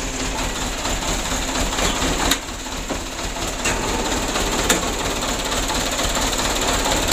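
Mitsubishi Canter 125's four-cylinder diesel engine idling with a steady clatter. The idle is uneven and shakes the engine, a sign of the fuel and valve settings the truck is in for, alongside its lack of power. Two sharp clacks come about two seconds in and again near the five-second mark.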